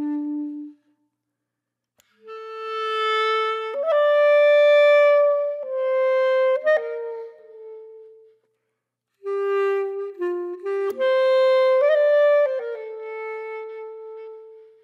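Background music: a slow solo melody on a wind instrument, long held notes with two short pauses.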